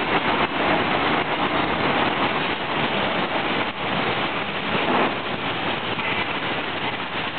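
Liquid-chocolate packing machine running: a steady, dense mechanical noise.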